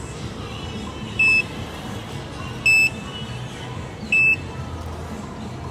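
Fresh orange juice vending machine beeping: short high beeps repeating about every one and a half seconds, three in all, signalling that the finished cup of juice is ready to collect.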